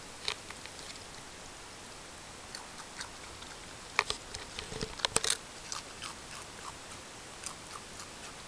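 Raccoon biting and crunching Pringles potato chips: irregular crisp crunches, the loudest cluster about halfway through, over a steady hiss.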